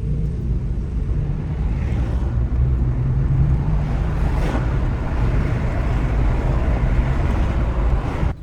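Car interior road and engine noise while driving: a steady low rumble.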